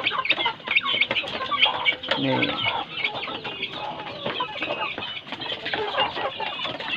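Kampung chickens, young ones among them, calling in a coop: a steady stream of many short, high peeps mixed with clucks.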